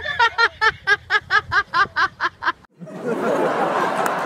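A person laughing in a rapid, high-pitched ha-ha-ha that stops abruptly about two and a half seconds in. Then applause and cheering start.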